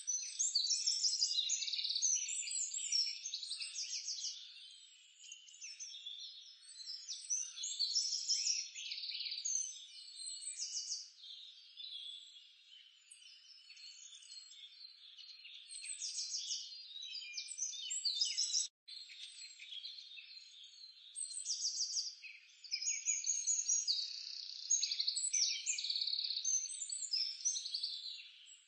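Birds chirping and frogs croaking, many overlapping short high calls that come and go in bouts, with a momentary cut-out about two-thirds of the way through.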